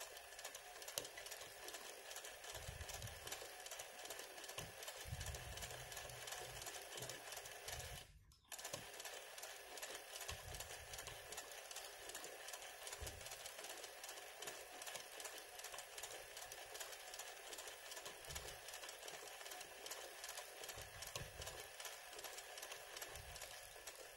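Sewing machine stitching continuously for hand-guided machine embroidery, a fast, even run of needle strokes. There is a brief break about eight seconds in.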